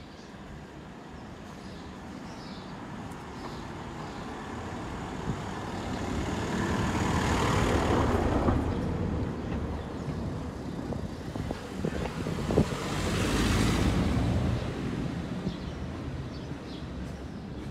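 Motor vehicles passing close by on a street: one swells to its loudest about eight seconds in and fades, and a second passes about five seconds later. Faint bird chirps at the start and near the end.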